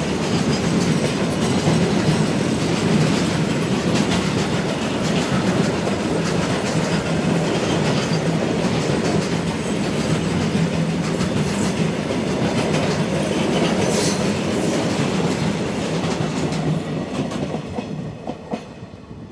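Freight train hauled by an Indian Railways WAG-9 electric locomotive rolling past: steady wagon-wheel clatter over the rail joints, fading away near the end.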